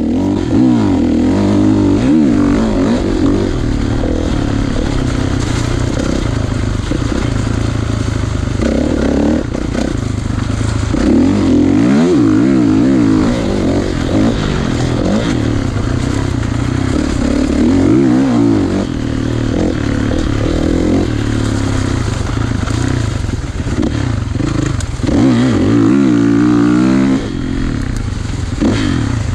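2016 Kawasaki KX450's four-stroke single-cylinder engine riding hard, its note rising and falling over and over as the throttle opens and closes, with louder surges several times.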